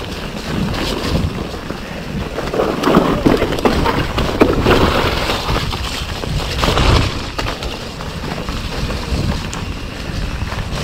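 A 2017 Orange P7 steel hardtail mountain bike running down a muddy trail, its tyres on the wet ground and the bike rattling and clattering over the rough surface, with wind buffeting the action-camera microphone. The clatter is louder a few seconds in and again around the middle.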